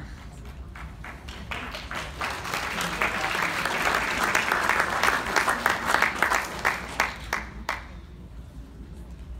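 Audience applauding. The clapping starts scattered, swells to a dense patch in the middle, then dies away near the end.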